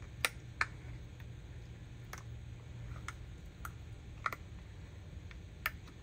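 Irregular sharp clicks and taps, about seven, the loudest two in the first second, as hands flex and peel a silicone mold off a cured epoxy resin tea light holder. The mold and the hard resin click under the fingers.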